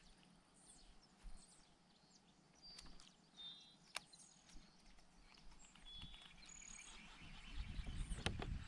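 Quiet outdoor ambience with scattered short, high bird chirps and a couple of sharp clicks, about four seconds in and near the end. A low rumble builds up over the last second or so.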